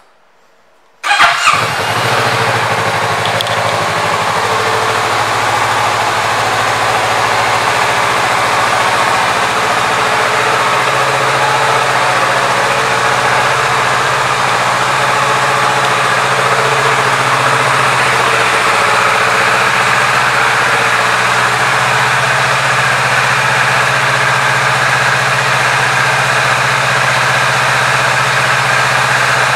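2018 Kawasaki Z650's parallel-twin engine starting about a second in, then idling steadily.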